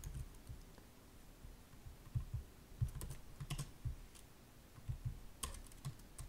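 Typing on a computer keyboard: scattered keystrokes in short clusters, about three seconds in and again near the end.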